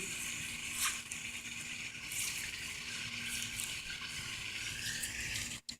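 Steady, quiet outdoor background hiss with a faint hum and a few soft clicks; the sound cuts out completely for a moment near the end.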